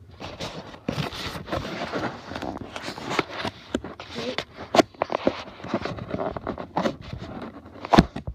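Close handling noise: irregular scraping and crackling with many sharp clicks and knocks, the loudest knocks near the end.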